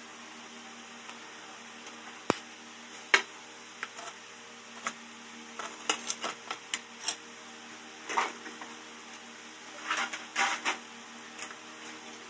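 Irregular sharp clicks and ticks, a dozen or so, some in quick clusters, over a steady low hiss.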